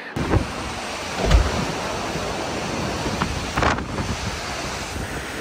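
Strong storm wind buffeting the microphone: a steady rush with low thumping gusts, the heaviest about a second in.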